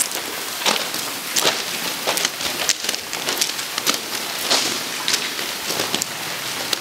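Footsteps crunching on loose gravel track ballast, a short crunch about every half second, over a steady hiss of running and dripping water.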